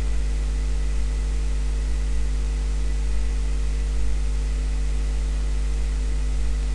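Steady electrical mains hum with a constant hiss beneath it, unchanging throughout.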